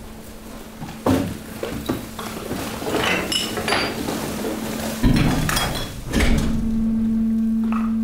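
Hydraulic waste press compacting mixed household waste: crunching and clinking of bottles and packaging, with heavy knocks about a second in and around five and six seconds, over the steady hum of the hydraulic pump, which grows much louder about six seconds in.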